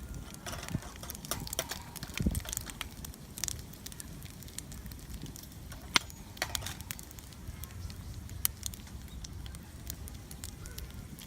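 Small wood fire crackling, with scattered sharp pops; the loudest comes about six seconds in.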